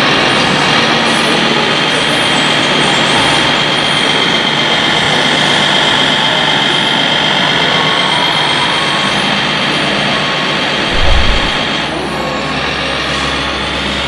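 ScaleART radio-controlled MAN 8x8 hook-lift truck running, with a steady truck-engine hum and hiss. A high whine swells and fades as the hook-lift arm raises. A short low thump comes about eleven seconds in.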